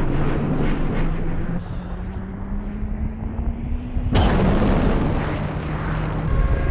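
Film sound design of a jet cockpit in flight: a deep rumble with a slowly rising tone, then a sudden loud blast about four seconds in that settles back into rumble. Steady musical tones come in near the end.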